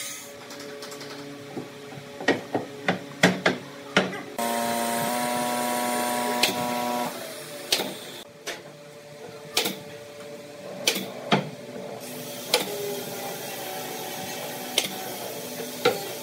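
Pneumatic nail gun firing into pine joints: a series of sharp single shots at irregular intervals, over a dozen in all, over a steady low hum. A louder steady machine hum starts suddenly a few seconds in and stops about three seconds later.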